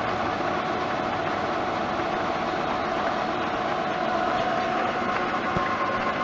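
Metalworking machine tool running steadily through a cutting pass on a metal bushing. A continuous mechanical hum with a couple of steady tones.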